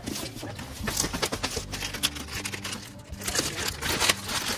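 Thin plastic courier wrapping crinkling and rustling in irregular crackles as it is pulled off a cardboard box by hand.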